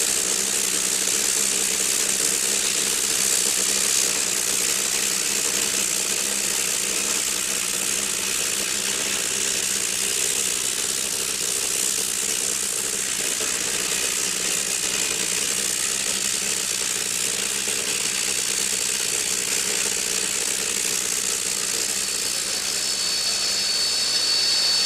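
Steam hissing steadily from NSW Government Railways 4-6-0 steam locomotive 3265 standing at the platform, with steam venting from its boiler and around the cylinders. A faint thin high tone joins the hiss near the end.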